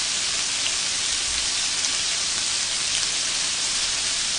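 Shrimp wrapped in thin-sliced pork sizzling steadily on a tabletop grill plate, with a few faint pops.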